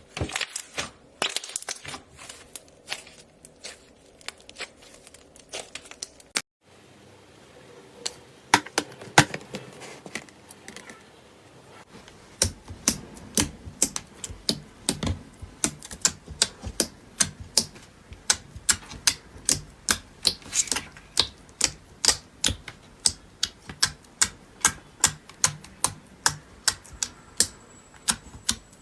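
Slime being pressed and worked by hand, giving sharp clicking pops. After a brief break about six seconds in, the clicks settle into an even run of about two or three a second.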